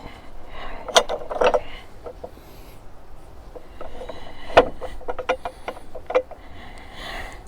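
Hard metal clicks and knocks from a heavy steel bracket being handled and pushed into place by hand. They come irregularly, a dozen or so, some with a short ring, the loudest about a second in and again midway.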